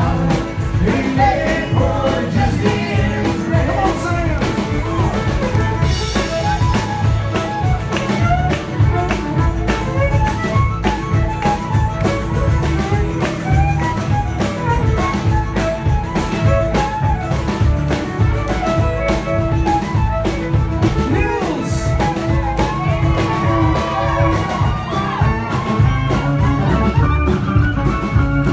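Live folk-rock band playing with a singer, guitar and drums over a steady beat.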